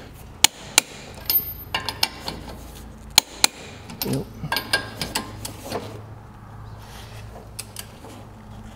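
Click-type torque wrench on lug nuts, giving a series of sharp metallic clicks, most in the first six seconds and fewer and fainter after. The clicks signal each nut reaching its set torque, mixed with the socket knocking onto the nuts, over a low steady hum.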